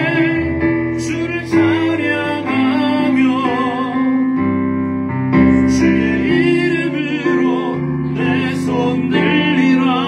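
Male singer singing a Korean praise song into a microphone, with vibrato on the held notes, accompanied by chords on a Yamaha digital piano.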